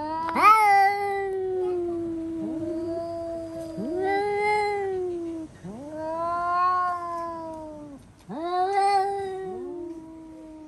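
Domestic cats caterwauling: a series of long, drawn-out, wavering yowls, some of them overlapping. This is territorial yowling at a strange cat spotted outside the window.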